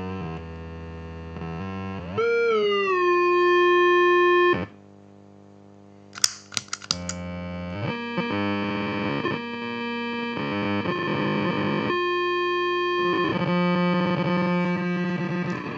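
Guitar-effects feedback loop through a WMD Geiger Counter, a Devi Ever 90 and an AXL SC-2 chorus, giving distorted electronic drones whose pitch glides up and down and steps as the pedal knobs are turned. Near the middle the drone cuts off suddenly and there are a few sharp crackles. Then the tones come back and build into a denser, warbling squeal.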